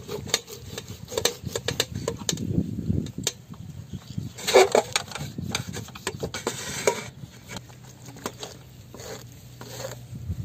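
A kitchen knife scoring deep cuts into a skinned rabbit carcass, making irregular clicks and scrapes as the blade knocks and drags against a steel tray.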